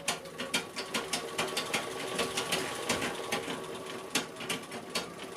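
Sewing machine running on its stand, with a fast, regular clacking from the stand's legs, about four to five clacks a second. The rattle comes from play in the legs' joints.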